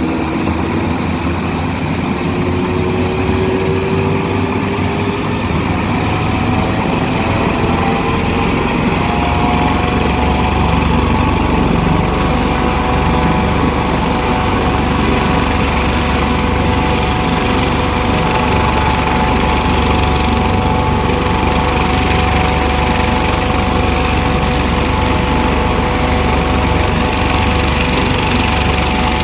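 Aircraft turbine engine starting up: a whine that rises in pitch over the first eight to ten seconds, then holds steady as the engine settles at running speed. A low rumble grows stronger underneath at about the same point.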